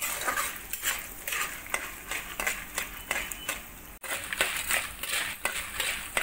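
Metal spatula scraping and stirring peanuts, dals and dried red chillies through sizzling oil in a steel kadai, in repeated strokes about twice a second, with a brief break about four seconds in. This is the tempering frying for pulihora, the nuts and dals near well browned.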